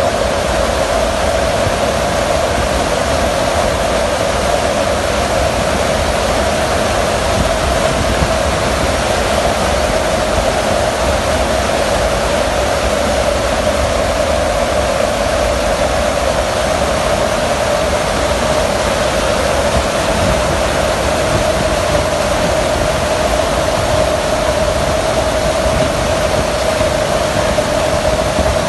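Fighter jet engine running steadily: an even, unbroken rush with a strong hum held at one pitch that sinks very slightly over the half-minute.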